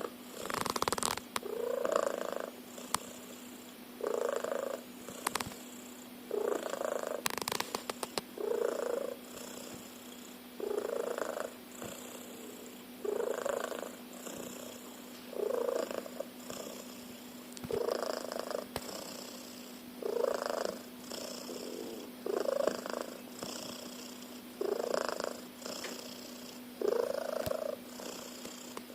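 A domestic cat snoring in its sleep, one loud rasping snore on each breath, about every two seconds.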